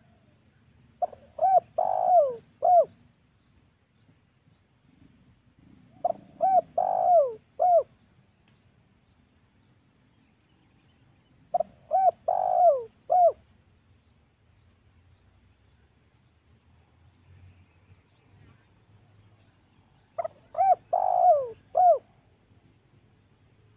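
Spotted dove (tekukur) cooing, played as a lure call to draw in wild doves. It gives four separate phrases several seconds apart. Each phrase has about four short coos, and the longer third coo falls in pitch.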